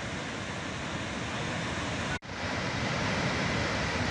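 Rushing floodwater, a steady noise of churning white water, with a momentary break about two seconds in.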